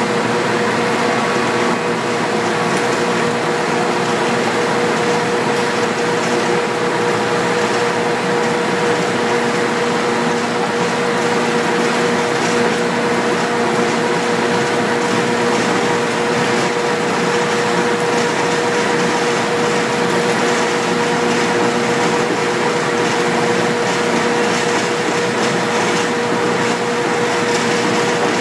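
Steady, loud industrial machine noise: a constant rushing drone with a steady hum and no distinct hammer blows.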